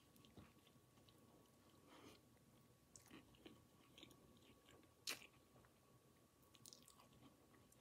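Faint chewing of a gyro wrap in pita bread: soft wet mouth clicks and smacks, with one sharper click about five seconds in.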